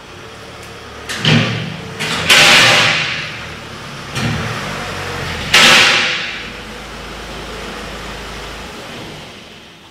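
Ford Mondeo Mk5 2.0 L diesel car driving slowly into a workshop bay, with four sudden rushing swells that each fade over a second or so, the loudest about two seconds in and again halfway, then a steady low hum.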